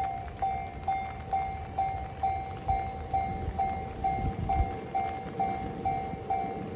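Japanese railway level-crossing alarm ringing its electronic bell steadily, a little over two strikes a second. Underneath it, the low rumble of an E235-series Yamanote Line train, heaviest about four seconds in.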